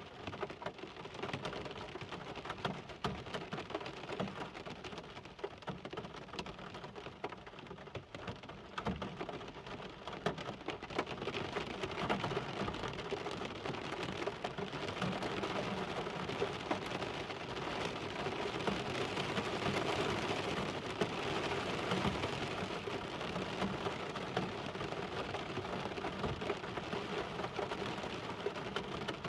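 Steady rain falling, a dense patter of many small drops, getting heavier about a third of the way in.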